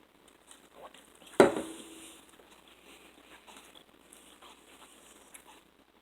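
A single sharp knock about a second and a half in, ringing on briefly as a low tone, amid faint small handling sounds.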